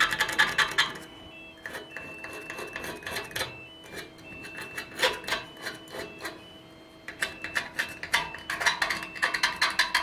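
Steel scriber scratching on a steel plate in quick back-and-forth strokes, scoring a cutting line. It comes in runs of rapid scrapes near the start, about halfway through, and again through the last few seconds.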